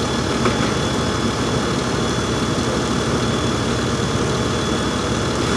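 An engine running steadily at a constant speed, with a faint steady high whine over it.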